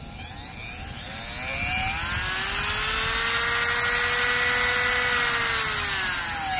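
WEN 2305 corded rotary tool running with no bit fitted, its motor whining. The pitch climbs over the first two seconds or so, holds steady, then falls away near the end.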